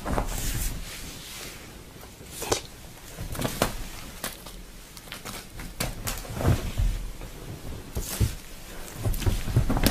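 A cat pouncing and scrambling on a fabric sofa cushion: scattered soft thumps and scuffles of its paws, several times over.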